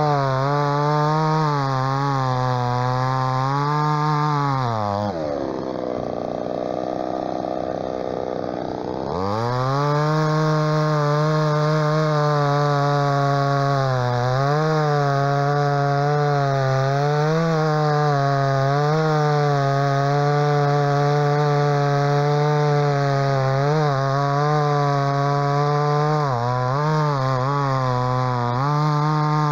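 MTX 4540 45 cm³ two-stroke chainsaw with a full-chisel chain cutting through a birch log, running at high revs under load with its pitch wavering as the chain bites. About five seconds in, the engine speed drops sharply for roughly four seconds, then climbs back to full cutting speed.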